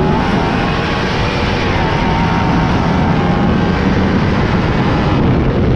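Lightning sprint cars racing, their engines running hard at high revs with the pitch rising and falling.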